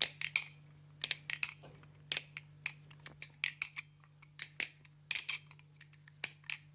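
A balisong (butterfly knife) being flipped, its unoiled pivots dry: a run of sharp metallic clicks and clacks as the handles swing round and strike each other, coming in irregular quick clusters.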